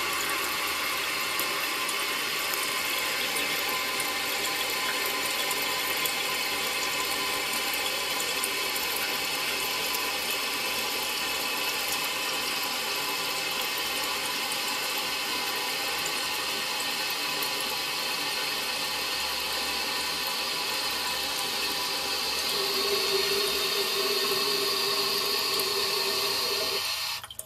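Toilet tank refilling through an old float-ball ballcock fill valve: a steady hiss of water that grows a little louder, with a tone coming through, over the last few seconds. It cuts off suddenly near the end as the float shuts the valve at the full level.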